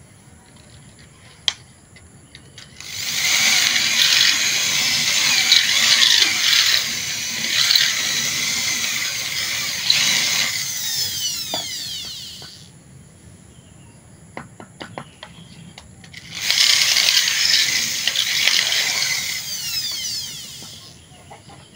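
Electric hand drill boring into a duralumin knife handle to widen the hole for the blade's tang. There are two runs of several seconds each, and each ends with the whine falling as the motor winds down. A few clicks come in the pause between the runs.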